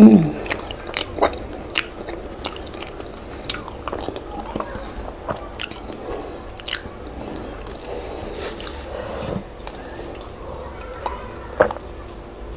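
Close-up eating sounds of a person chewing boiled yam with owo stew: irregular small mouth clicks and smacks, with one brief voiced sound at the very start that is the loudest moment.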